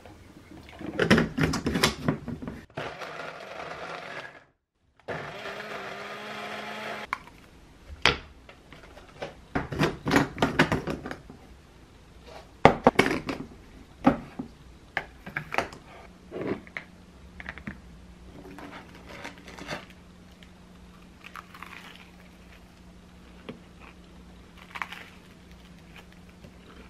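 Small blender motor running in two short stretches of a few seconds each, blending milk and blueberries into a smoothie in a Ball mason jar. Before it come clattering knocks, and after it scattered clicks and knocks of the glass jar and its plastic lid being handled.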